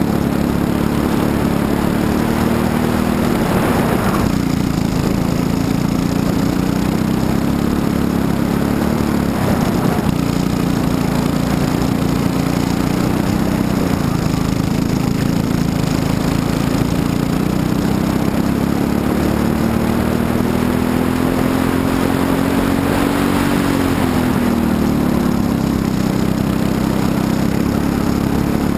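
Briggs & Stratton LO206 single-cylinder four-stroke kart engine at racing speed. Its pitch climbs slowly along the straights and falls off sharply when it slows for corners, about four seconds in and again about five seconds before the end.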